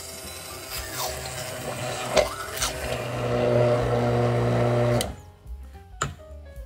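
Immersion blender motor running while pureeing chunks of cooked pumpkin in a stainless steel pot, a churning whir that settles into a steady hum before cutting off suddenly about five seconds in. A single sharp knock follows about a second later.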